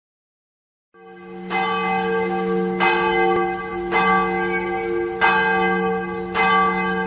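A large bell tolling: five strikes about a second and a quarter apart, each one ringing on into the next with a deep steady hum beneath.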